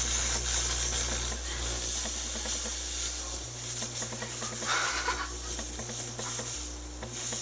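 Electrical hum and hiss from speakers, picked up when a person touching a plasma lamp touches the end of an audio cord to a metal part: a weird noise. The low hum cuts in and out several times in the second half as the contact is made and broken.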